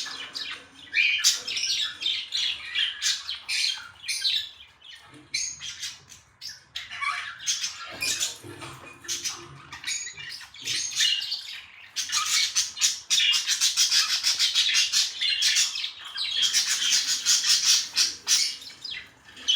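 Pet budgerigars chirping and chattering in quick, dense runs of high chirps, thinning briefly a few seconds in and busiest in the second half.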